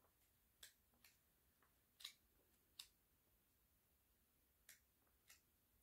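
Near silence broken by faint, sharp clicks at irregular intervals, about six in all; the two strongest come around two and three seconds in.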